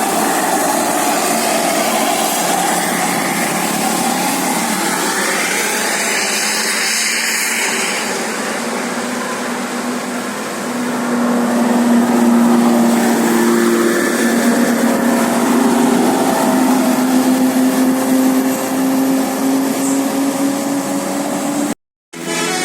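Bus engine running as the bus moves, its pitch gliding in the first several seconds and then holding steady.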